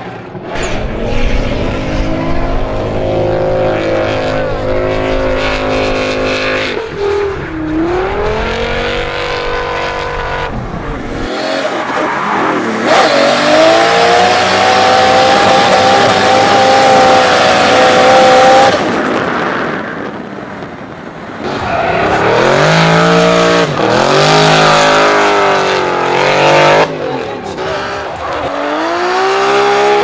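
Drift cars' engines revving hard while sliding, held high and steady for a long stretch in the middle, dropping sharply twice as the throttle is lifted and then climbing again, with tyres squealing and scrubbing on the asphalt.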